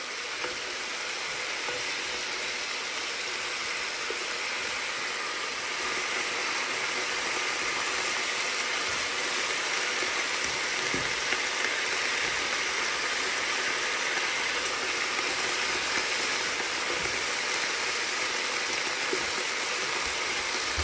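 Pig feet and oxtail pieces sizzling steadily as they sear in hot oil in a pan, a little louder after about six seconds. A few light knocks of tongs against the pan as the meat is turned.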